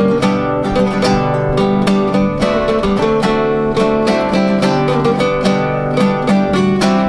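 Two acoustic guitars playing an instrumental break in a sertanejo song, a plucked melody over rhythmic strummed chords with no singing.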